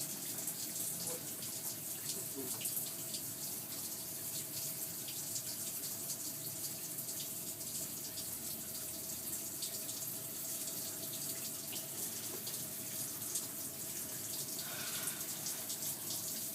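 Steady rush of running water from a tap with a steady mid-pitched hum through it, holding unchanged throughout.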